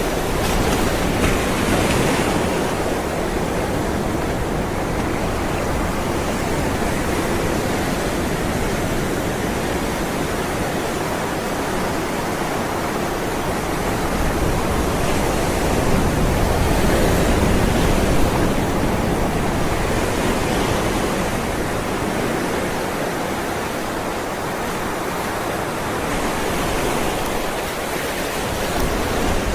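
Ocean waves rolling and breaking in a continuous rushing wash, swelling and easing slowly, with a stronger surge a little past the middle.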